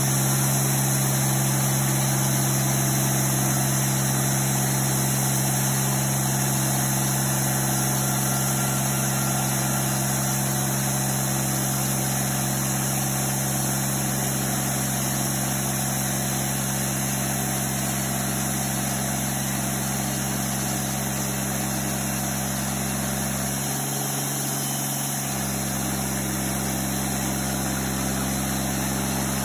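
Wide portable bandsaw mill running steadily at an even pitch while its band blade saws through a large ash log.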